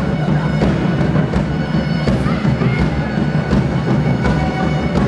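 A live band playing a rock song: bowed violins and viola over strummed acoustic and electric guitars and bass. A drum kit keeps a steady beat of about one hit every three-quarters of a second.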